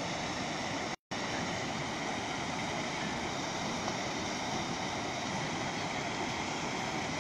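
Flooded river water rushing and churning through whitewater in a steady, even rush. The sound cuts out completely for a split second about a second in.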